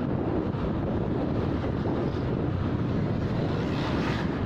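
Wind rushing over the microphone on a moving motorcycle, over steady engine and road noise.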